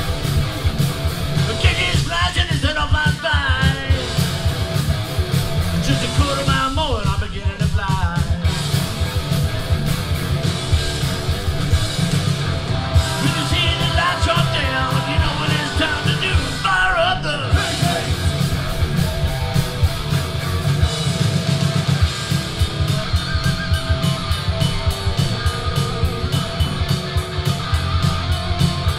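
Live rock band playing loud: electric guitars, bass guitar and a drum kit, with a singer's voice coming in at a few points.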